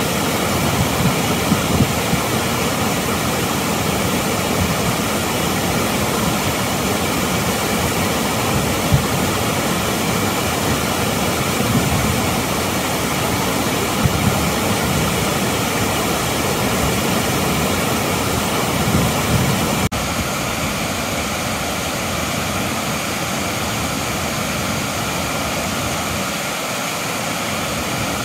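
Waterfall and the creek below it rushing steadily over rocks. About twenty seconds in the sound drops slightly and loses some of its low rumble.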